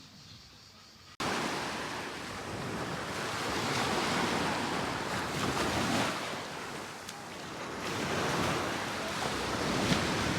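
Sea waves washing ashore with wind buffeting the microphone: a steady rushing that starts abruptly about a second in, then swells, eases and swells again.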